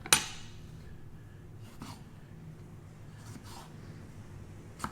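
A sharp click, then a few faint soft handling noises and another small click near the end: cherry tomatoes and a knife being handled at a cutting board, over a low steady hum.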